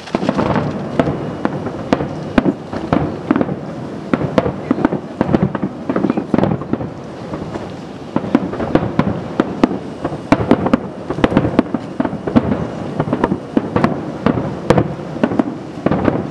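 Aerial firework shells bursting in rapid succession: a dense barrage of sharp bangs, several a second, throughout.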